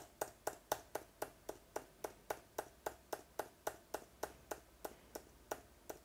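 MacBook laptop keyboard's delete key tapped rapidly and repeatedly, about four light clicks a second, mashing the key to get a booting PC into its BIOS setup.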